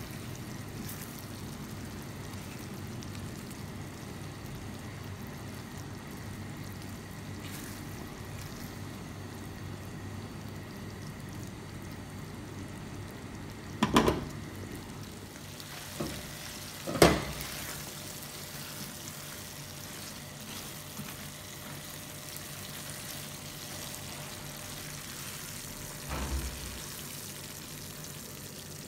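Thick vegetable masala curry simmering and being stirred with a silicone spatula in a non-stick frying pan, a steady low hiss. About halfway through the spatula knocks sharply against the pan twice.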